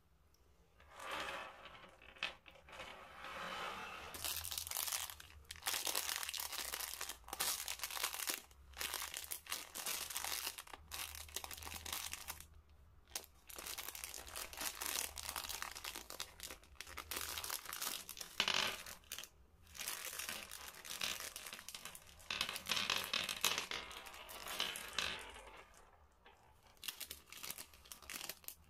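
Plastic sweets bag crinkling as it is handled and torn open, crackling in stretches with short pauses between.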